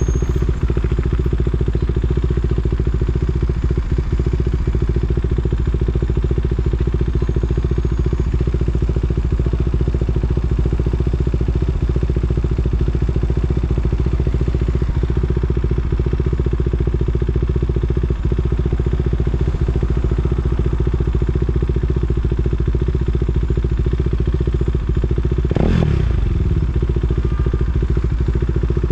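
KTM Duke 390's single-cylinder engine running steadily at low, even revs, as in slow traffic, with a brief sound falling in pitch about two-thirds of the way through the last third.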